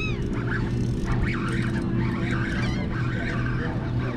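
Party fishing boat's engine running with a steady low hum, and a few short bird calls near the start and around the middle.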